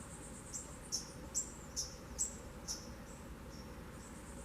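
A small bird singing: a run of about six sharp, high chirps, roughly two a second, that fades out near the middle, over a faint steady high-pitched trill.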